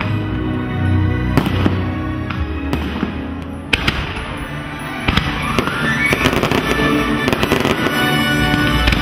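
Fireworks bursting with sharp bangs over music with long held notes. The bangs are scattered at first and come thick and fast from about five seconds in.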